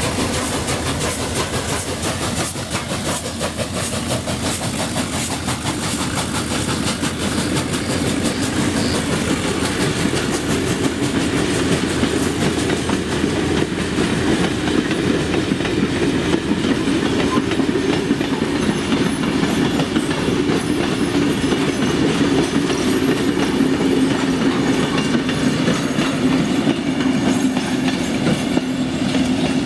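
A doubleheaded train passing close by: the 48 class diesel locomotive and the 36 class steam locomotive go past first, then a long rake of passenger carriages rolls by with steady wheel rumble and clickety-clack over the rail joints. The rumble grows louder about halfway through, as the carriages run close past.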